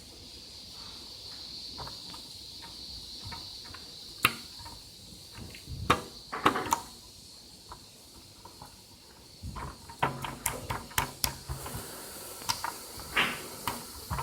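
Green slime being handled, giving irregular wet clicks and pops, bunched in quick clusters in the second half, over a faint steady high hiss.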